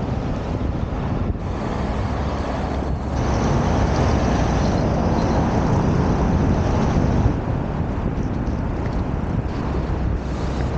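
Street traffic noise with a low rumble: a vehicle passes close, loudest from about three to seven seconds in, with a thin high whine while it passes.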